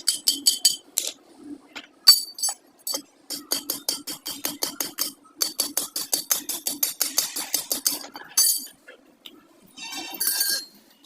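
Rapid light strikes on metal, often about four or five a second, each with a short metallic ring, over a faint steady hum, with pauses in between.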